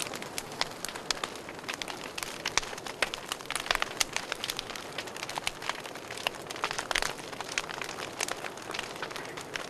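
Wood logs burning in a fireplace, with irregular crackles and pops over a soft steady hiss.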